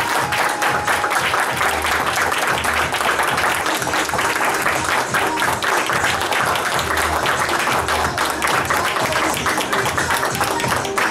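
A small audience clapping steadily, with music playing underneath.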